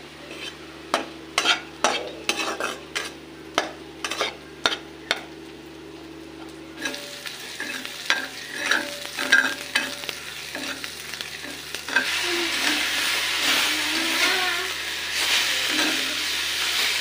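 Stir-frying: a spatula scraping and clacking against the wok as greens are tossed. After a change of scene, onions and greens are stirred in a karahi with oil sizzling, the sizzle louder and steady from about twelve seconds in.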